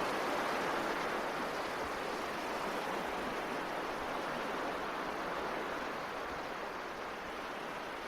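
Steady rushing noise with no music or voice, even in level throughout.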